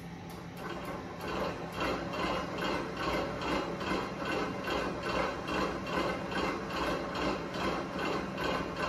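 Innofood V88 stand mixer running, its beater creaming butter and icing sugar in the steel bowl: a steady motor hum with a regular clatter about twice a second, picking up over the first couple of seconds.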